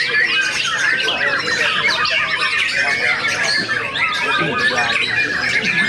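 Several white-rumped shamas (murai batu) singing against each other in a song contest: a dense, unbroken tangle of rapid whistles, trills and chattering phrases.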